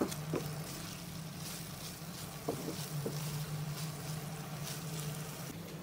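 Beef masala frying in a pan over a medium flame, a faint steady sizzle as the gravy dries off, stirred with a spatula that knocks lightly against the pan a few times. A steady low hum runs underneath.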